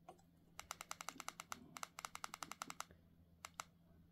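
Faint, rapid clicking of a Retevis RA-89 handheld radio's keypad buttons pressed over and over to scroll through the menu, about ten clicks a second for roughly two seconds, then two more single clicks.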